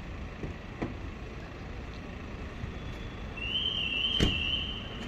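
Outdoor street ambience at a station square: a steady low rumble, with a sharp knock about four seconds in and a high warbling tone over roughly the last second and a half.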